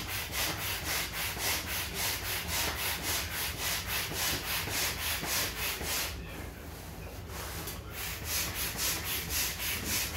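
Manual air pump inflating a vinyl inflatable kayak: rhythmic puffs of rushing air, about four a second, with a pause of about a second around six seconds in.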